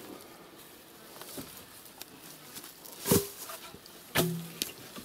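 Two sharp wooden knocks about a second apart, near the end, as poles are handled and pulled from a car boot, over faint rustling of grass.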